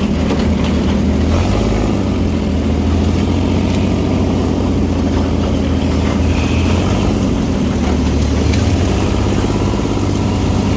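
Dune buggy engine running steadily, heard from on board the buggy.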